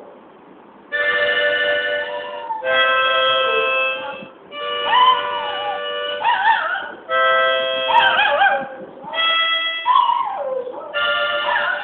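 A free-reed gaita plays held chords in short phrases, and a pet dog howls along in wavering wails from about five seconds in: the dog 'singing' to the instrument.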